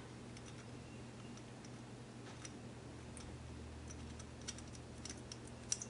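Faint scattered clicks and light taps of small metal carburetor parts being handled as the float needle seat is fitted into the carburetor body, over a steady low hum; the sharpest clicks come near the end.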